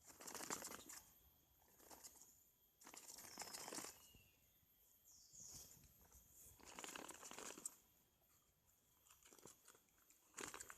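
Faint rustling and crunching in four bursts of about a second each, with a brief high bird note about halfway through.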